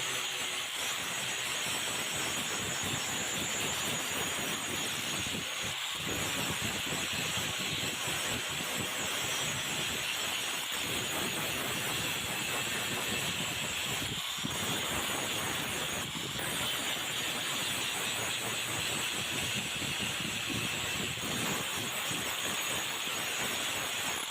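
Steady abrasive grinding of a metal blade, a continuous rough scraping noise broken by a few brief pauses.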